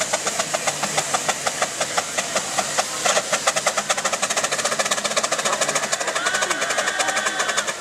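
Foden steam wagon chuffing fast and evenly, its exhaust beats quickening after a few seconds, as it hauls a weighted pulling sledge under heavy load.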